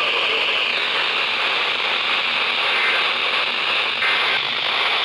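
Steady radio static from a receiver on a weak or absent signal: an even, fairly high-pitched hiss with no voice coming through.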